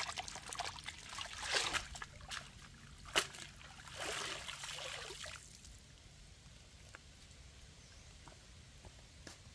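Stream water splashing and sloshing as a woven basket of vegetables is rinsed in it, with irregular sharp splashes, lasting about five seconds before it goes much quieter.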